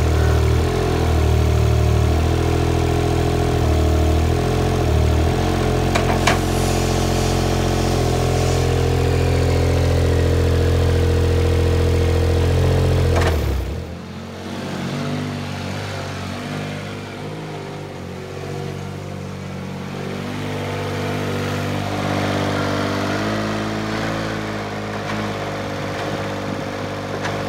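Compact loader's engine running loud and steady, with a sharp knock about six seconds in and another just before halfway. It then drops to a quieter stretch where the engine's pitch rises and falls as it works.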